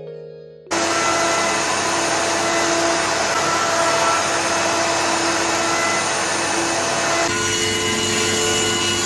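Triton plunge router with dust extraction running, flattening the end-grain face of a cutting board on a router sled. It comes in suddenly about a second in as a loud, steady noise with a high whine, and its tone shifts a little near the end.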